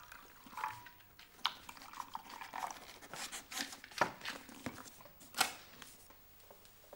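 Soft rustling and a few sharp clicks and taps as a hardback book is handled.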